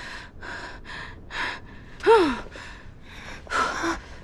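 Young women gasping and panting, a string of short breathy gasps with one brief cry about two seconds in that falls in pitch, as they strain against a strong gust of wind.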